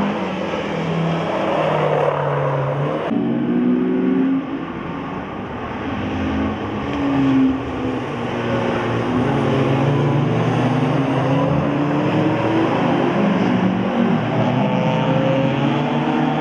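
Small hatchback autospeedway race cars lapping the circuit, their engines revving up and falling back through gear changes and corners, several engines overlapping. The sound changes abruptly about three seconds in.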